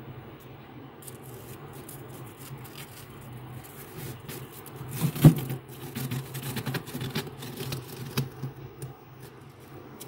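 Fingers digging into and squeezing soft freezer frost, giving crunching and crackling with a few sharp cracks, the loudest about five seconds in. A low steady hum runs underneath.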